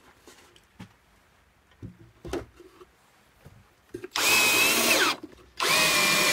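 Power drill driving screws into plywood: two runs of about a second each, the motor's whine steady and then falling in pitch as the trigger is let go. A few light knocks from handling come before.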